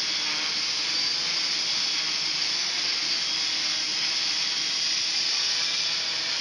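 Quadcopter hovering steadily in loiter mode a few feet off the ground: the even whir and hiss of its four brushless motors and propellers, with no change in pitch. Running on SimonK-flashed speed controllers, which give the motors a nice and quiet sound.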